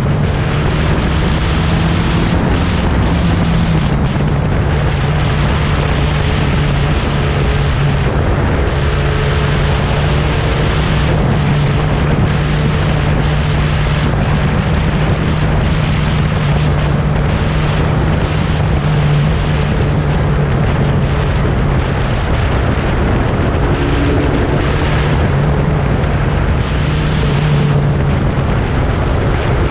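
Huffaker Genie Mk13 1960s prototype racing car engine running loudly at a steady, fairly high idle. The pitch dips slightly about four seconds in and otherwise holds nearly constant.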